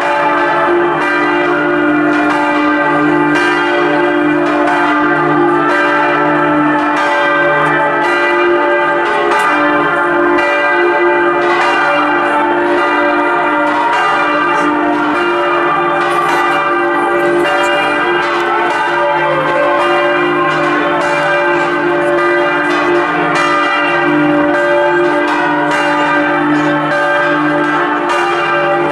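Swinging church bells ringing in full peal, with many strokes overlapping and the deepest bell striking again and again.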